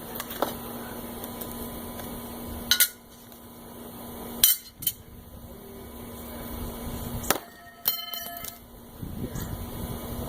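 Steel throwing knives striking a target: several sharp impacts a second or two apart, the one about eight seconds in ringing out with a metallic clang.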